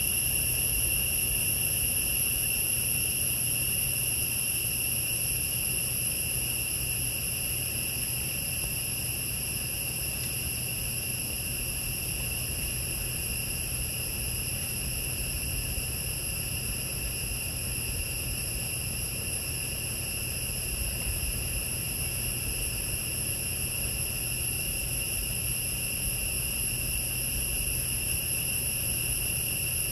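Steady, unbroken high-pitched chorus of forest insects, with a low steady hum underneath.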